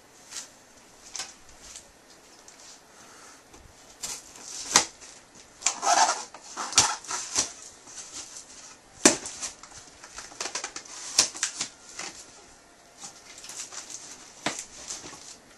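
Packaging being handled and opened: irregular crinkling and rustling, with several sharp snaps, busiest in the middle.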